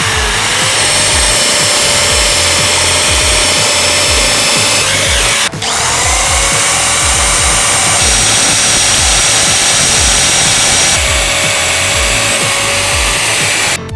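The 800 W motor of an MPT MDM8003 16 mm electric drill/mixer running with a steady whine. The sound cuts out suddenly for a moment about five and a half seconds in, then carries on. A steady beat of background music plays underneath.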